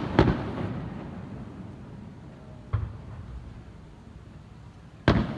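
Aerial firework shells bursting: a boom at the start, a fainter one about two and a half seconds in, and a loud one near the end, each trailing off in a rolling echo.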